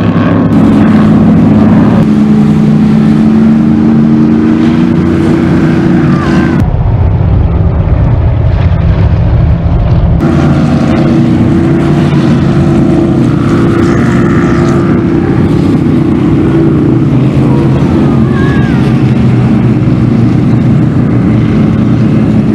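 High-performance powerboat engines running hard as the boats speed past, a deep, many-toned engine note. The sound changes abruptly about 2, 7 and 10 seconds in.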